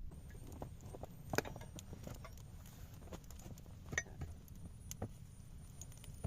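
Scattered, irregular sharp clicks and knocks, a few louder ones about a second and a half, four and five seconds in, over a faint low rumble.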